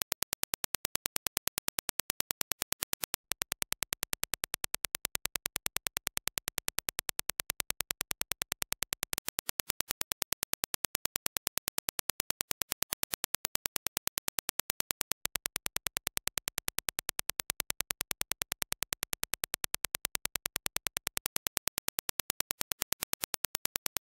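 Reference Dirac impulse test signal: an even train of sharp single-impulse clicks, several a second, each spanning the whole frequency range.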